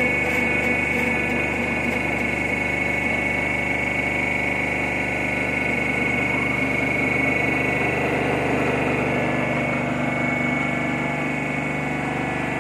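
Hydraulic drum press running: its 5000-watt electric motor and hydraulic pump give a steady hum with a high, even whine while the ram moves the press plate.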